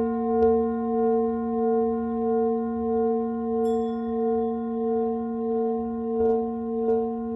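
A large brass singing bowl and a small bell hung above it ringing on with a long, sustained tone that pulses slowly, about three times every two seconds. Near the middle a light stick strike on the small bell adds a higher ring, and a couple of faint knocks come near the end.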